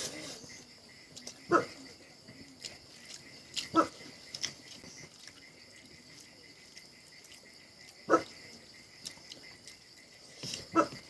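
A dog barking, four single barks a few seconds apart, over a steady high-pitched whine.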